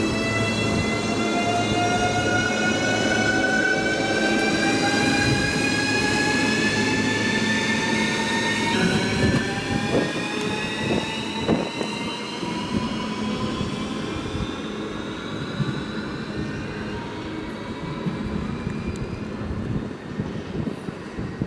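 ES2G Lastochka electric multiple unit pulling away, its traction motors giving a several-toned whine that rises steadily in pitch as the train accelerates. A few sharp clicks come about ten seconds in, and after that the whine fades, leaving a quieter rumble.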